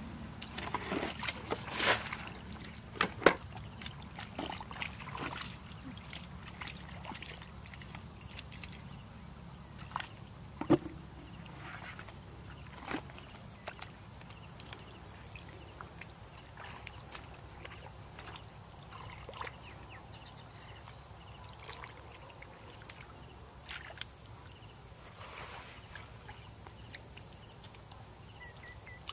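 Water tipped out of a plastic basin onto shallow mud in the first couple of seconds, then scattered splashes and sloshes as hands grope through a muddy puddle for stranded fish. A steady thin high whine runs underneath.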